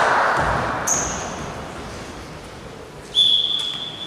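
Basketball bouncing on a gym floor amid fading hall noise, then a sudden sharp, high steady tone about three seconds in, the loudest sound here.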